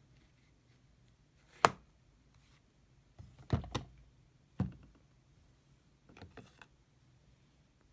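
Plastic makeup containers being handled. A sharp click comes about one and a half seconds in, a cluster of clicks and taps follows around three and a half seconds, another click about a second later, and fainter clicks near the end.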